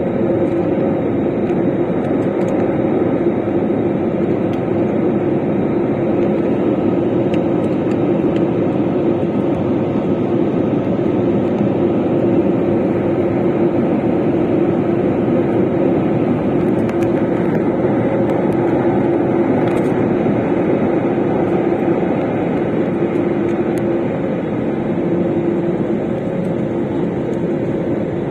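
Airliner engines heard from inside the passenger cabin during take-off and climb: a loud, steady engine noise with a constant hum that barely changes.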